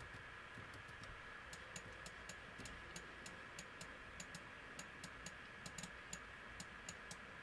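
Faint, irregular clicking of a computer mouse and keyboard, a few clicks a second, over a low steady microphone hiss.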